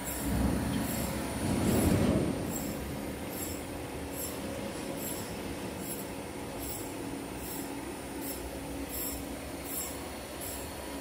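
TCK46A slant-bed CNC lathe running: a steady hum with a regular high-pitched ticking about twice a second, and a louder swell of noise in the first two seconds.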